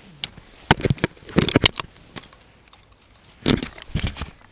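Irregular crunching and crackling of footsteps through crusted snow and dry brush, in three short clusters, with stiff stems scraping past.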